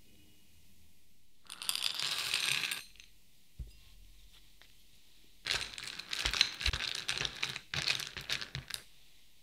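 Chocolate discs and cocoa butter buttons rattling and clicking against a glass bowl: a dense rattle about two seconds in, then a longer run of clicks as a spatula stirs them.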